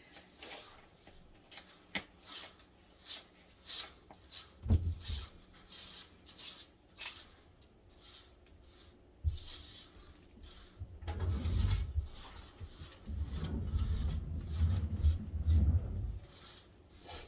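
Handling noises: scattered clicks and rubbing, dull thumps about five and nine seconds in, and heavier low bumping and rubbing late on.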